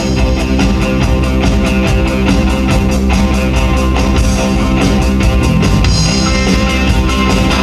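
Live band music with sustained chords over a fast, steady beat.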